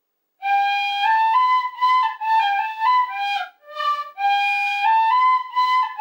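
Tin whistle playing a simple melody of short stepwise notes, starting about half a second in, with a brief break near the middle.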